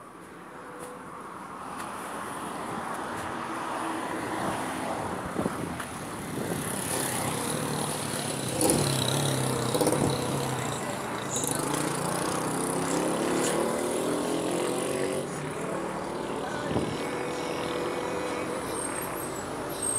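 Street traffic: a motor vehicle's engine running close by, growing louder over the first few seconds and then holding, its pitch shifting up and down.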